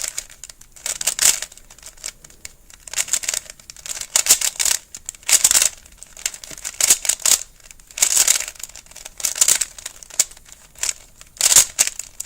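A 3x3 Rubik's Cube being scrambled by hand: its plastic layers are turned in quick runs of clicking, rasping twists with brief pauses between them.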